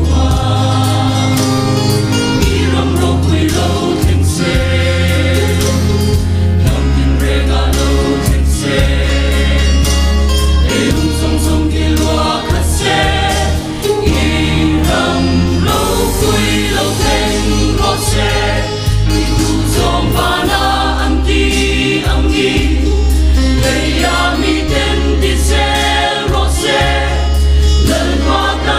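Mixed choir of women and men singing together, several voice parts at once, over a deep steady bass underneath.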